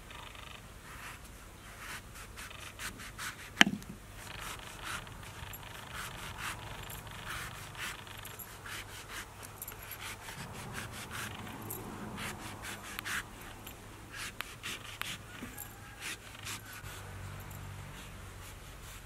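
A knife cutting and peeling the thick rind of a pomelo, with repeated short scraping strokes and small crackling clicks as the peel is scored and pulled away. One sharp knock comes a few seconds in.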